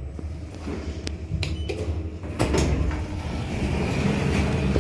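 Schindler 3300 elevator's automatic doors opening on arrival at a floor: a few sharp clicks from the door mechanism, then the doors sliding with a louder rumble from about two and a half seconds in, over the car's steady low hum.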